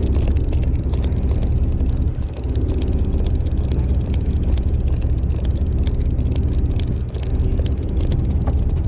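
A boat engine running steadily with a low hum, with many small clicks and ticks scattered over it.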